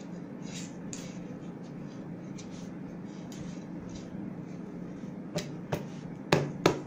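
Cloth being handled on a work table, with a steady low hum in the room. Then a few sharp clicks or taps, close together, near the end.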